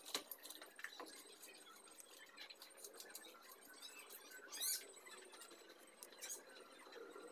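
Faint small clicks and scratches of hands working small metal parts on top of a PCP air rifle's receiver, with one brief louder scratchy sound about two-thirds of the way through.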